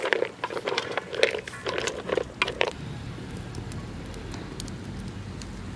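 Jhinuk (freshwater oyster) shells clattering against each other and the metal pot as they are stirred in water with a stick: a quick run of sharp knocks. About three seconds in this gives way to the steady low rumble of a wood fire.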